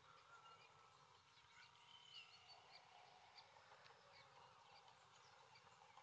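Near silence: faint outdoor ambience with a few soft, short high chirps from small birds, one brief call about two seconds in.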